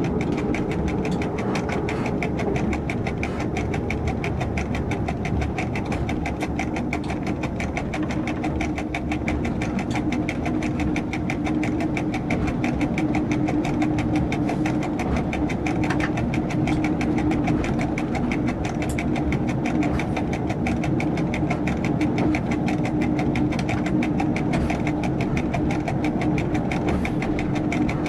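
Diesel train's engine running steadily, heard inside the driver's cab as it travels along the line: a continuous drone with a fast, even pulse.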